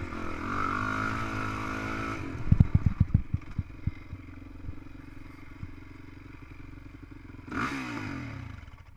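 Honda CRF450X single-cylinder four-stroke dirt bike engine running on the throttle, its pitch rising and falling. About two and a half seconds in comes a run of heavy knocks and clatter, then the engine settles to a lower, steady run, with a short rev near the end.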